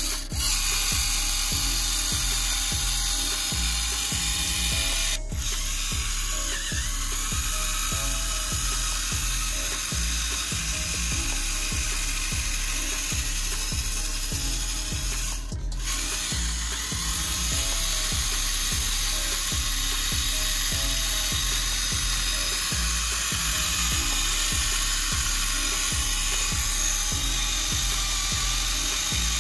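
Small electric gear motors of a homemade RC toy tractor whirring as it drives and hauls a loaded trolley through mud, over background music with a steady bass beat. The sound breaks off for a moment about five seconds in and again about sixteen seconds in.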